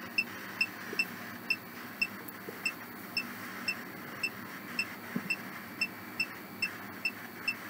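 Ghost-hunting app on a phone putting out a steady hiss with short high beeps about twice a second.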